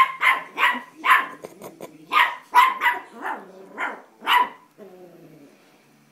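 Small white puppy barking at a big yellow toy egg: about a dozen quick, high-pitched barks in a row, which stop about four and a half seconds in.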